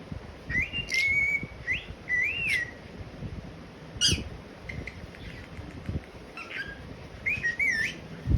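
Pet parrot whistling and chirping: short whistled notes that slide up and down, with a few sharp clicks in between.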